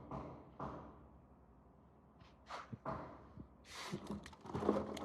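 A few light knocks and clicks, then a short scraping rustle about four seconds in, as termite-eaten wooden fittings are handled.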